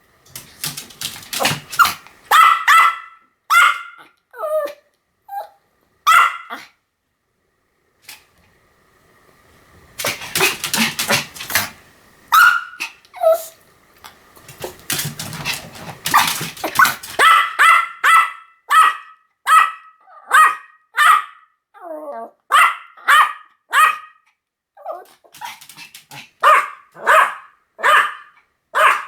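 Pomeranian barking repeatedly in short, sharp yaps. The barks come in irregular bursts with brief pauses, then settle into a steady run of about two barks a second in the second half.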